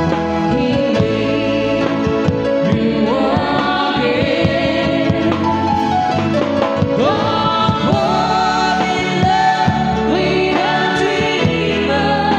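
A live band plays a ballad, with a man and a woman singing a duet into microphones over keyboard, electric guitars and drums.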